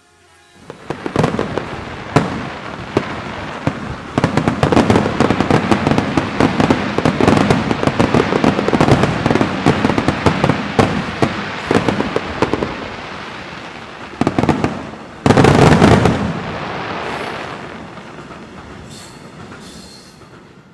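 Fireworks going off in a dense run of rapid bangs and crackle. The loudest burst comes about fifteen seconds in, then it fades to scattered crackling near the end.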